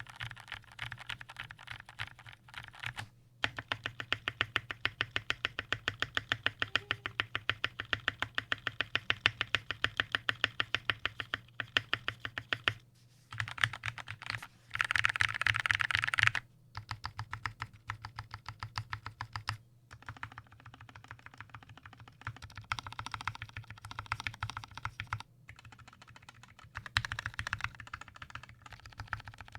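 Typing on a 60% mechanical keyboard with lubed Gateron KS-3 brown switches, PBT keycaps and an aluminium plate in a plastic case: a fast, even stream of key clacks, with a short, denser and louder burst about halfway, then lighter typing with brief pauses.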